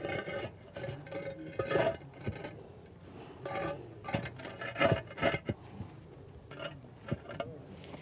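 Hollow concrete retaining-wall blocks scraping and knocking against each other and the soil as they are handled and set into place, with irregular knocks and scrapes, the loudest a little before the middle.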